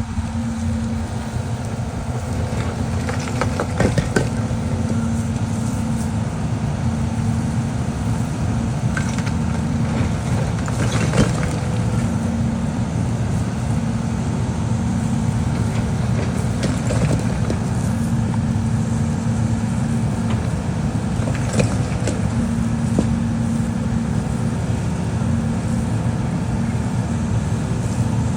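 Heavy diesel demolition machine, such as an excavator, running steadily, with scattered knocks and crunches of breaking debris.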